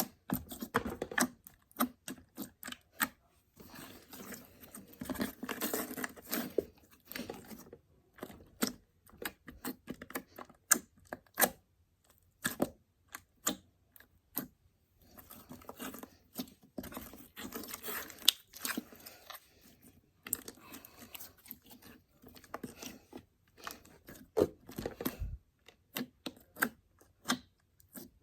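Hands squeezing, stretching and poking slime: a steady run of sharp wet clicks and pops, with two longer stretches of denser crackling squelching.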